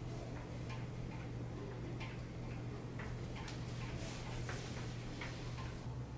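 Faint, irregular light clicks and taps from handling tools and clamps, over a steady low hum.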